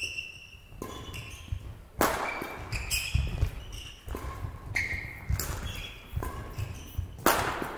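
Badminton rally: sharp racquet hits on the shuttlecock, several in a row about a second apart, with short high squeaks of shoes on the court floor and footfalls between them.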